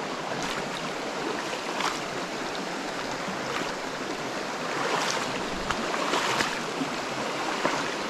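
Shallow mountain trout stream rushing steadily over rocks and riffles, with a few faint ticks and splashes here and there.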